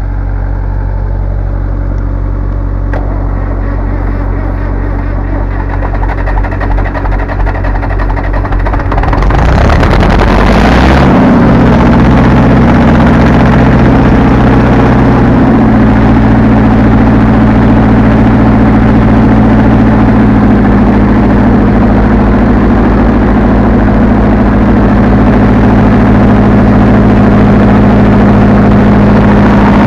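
1967 Zetor tractor's diesel engine catching about nine seconds in after a start attempt, rising quickly in speed and then running steadily and loud for the rest of the time, with its note settling a little lower twice. Before it catches there is a steady, quieter engine drone.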